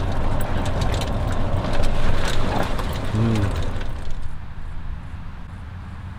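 Wind buffeting the microphone as a rough, low rumbling noise that eases off after about four seconds.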